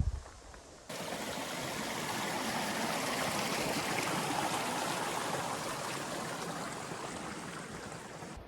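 Running water of a stream, a steady rush that begins abruptly about a second in, grows slightly, then fades gradually over the last few seconds. A brief low thump at the very start.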